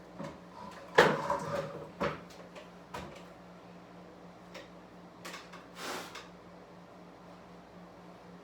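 A clatter about a second in, then two sharp knocks a second apart and a few softer scrapes, over a steady low hum.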